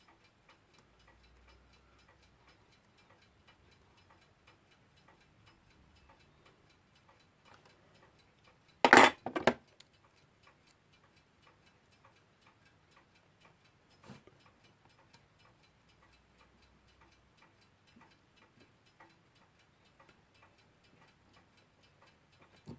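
Westclox Big Ben Style 1 alarm clock movement ticking steadily and faintly, with its balance running out of beat while the hairspring is being adjusted. A brief, loud double clatter comes about nine seconds in, and a single knock follows a few seconds later.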